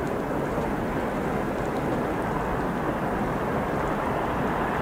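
Steady rumbling noise of a freight train hauled by a 2ES6 electric locomotive rolling along the track at a distance.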